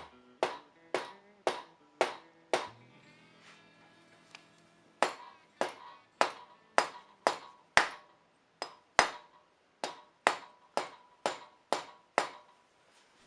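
Mallet blows on the stuck cylinder head of a 1979 Triumph T140E engine, about two a second, each a sharp knock with a short ring. They pause for a couple of seconds partway through, and run over soft background music. The blows are meant to break the old head gasket's bond, and the head is not yet coming loose.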